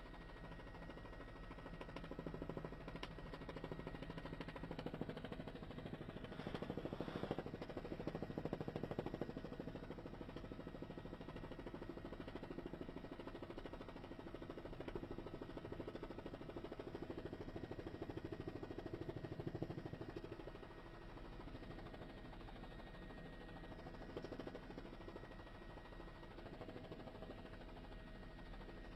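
Faint, steady hum of a news helicopter's turbine engine and rotor, with a few steady tones in it, a little louder through the first two-thirds.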